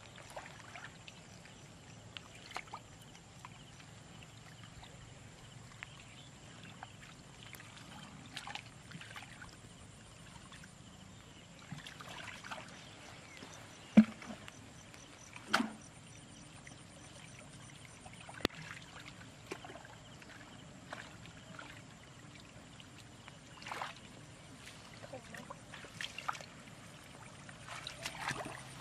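Hands and feet splashing and sloshing in shallow muddy water, in scattered short bursts, with two sharp slaps standing out about halfway through.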